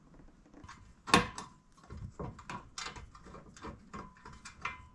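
Plastic front bumper cover and bolt-on bumper bar being handled while nuts are fished onto bolts behind it: a sharp click about a second in, then a string of lighter, irregular clicks and scrapes.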